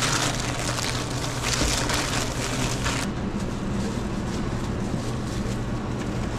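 Steady low hum of shop equipment, with a loud rustling hiss over the first three seconds that then stops.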